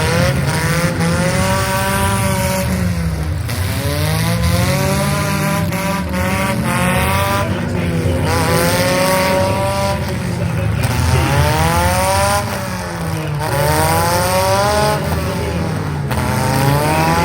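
Several demolition derby car engines revving hard at the same time, their pitch repeatedly rising and falling as the drivers floor it and back off. Sharp crunches of cars hitting each other come through now and then.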